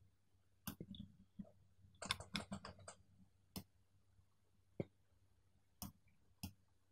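Faint, irregular clicks of a computer mouse, about a dozen, with a quick bunch of them about two to three seconds in.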